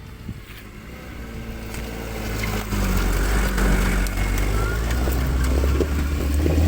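Off-road vehicle's engine running, growing louder about two and a half seconds in and then holding steady.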